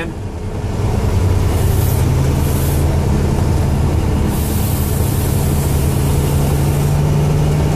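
Truck engine drone and road noise heard inside the cab while driving in heavy rain, the engine note rising slowly; a high hiss swells in and out over it.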